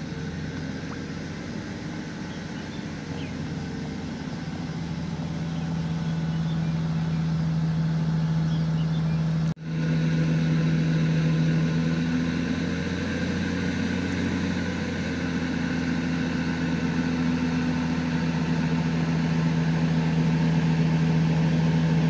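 Vehicle engine running with a steady low hum. The sound breaks off for an instant about ten seconds in.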